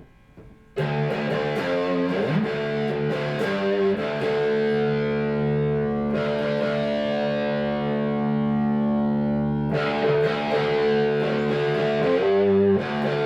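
Electric guitar played through a Diezel VH4-2 distortion pedal on channel 1, its Presence control turned up. The distorted playing starts suddenly about a second in, settles on a long held chord in the middle, then picks up again near the end; picked up by a phone's microphone.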